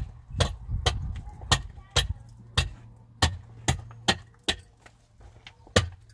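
A hand adze (tisheh) striking a concrete-block wall in sharp, separate blows, about two a second, with a brief pause near the end. A low steady hum runs underneath.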